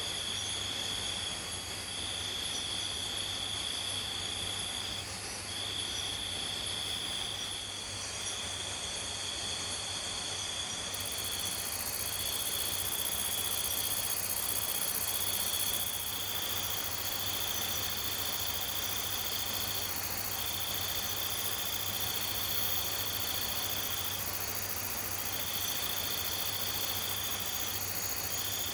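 Night insect chorus of crickets or katydids: a high, steady trill sings in phrases of one to three seconds, broken by short gaps, over a constant hiss of other insects.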